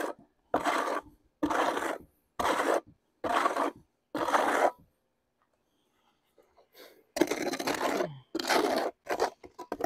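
Wet concrete being scraped out of a plastic mixing tub into a post hole: five short scrapes about a second apart, a pause, then two longer scrapes near the end.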